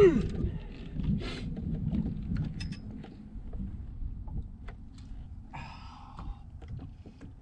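Wind and water noise around a small boat, with scattered light clicks and knocks of fishing tackle being handled, and a brief rough burst a little over five seconds in.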